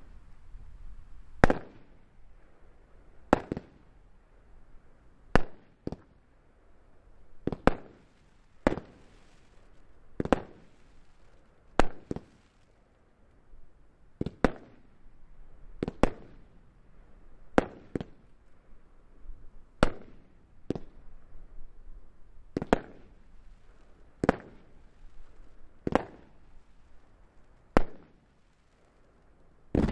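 Roundhouse Kick 32-shot fireworks battery firing its opening sequence: a sharp bang about every one and a half to two seconds, each shot sending up a comet or star effect.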